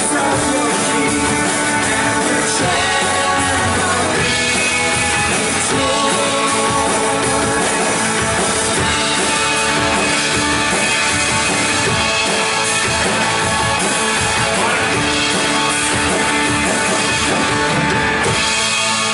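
Live worship band music with drums, guitar and singing, playing steadily throughout.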